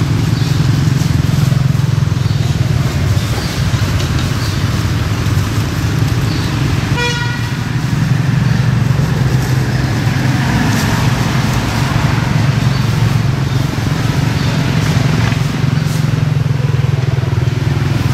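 Steady rumble of motor traffic, motorbikes and cars, with a vehicle horn giving one short toot about seven seconds in.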